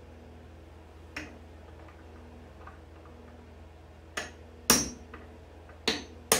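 Claw hammer striking a steel nail punch to drive a nail out of a wooden chair post: five sharp metal-on-metal taps with a brief ring, one about a second in and four more in quicker succession near the end, the loudest a little before the five-second mark.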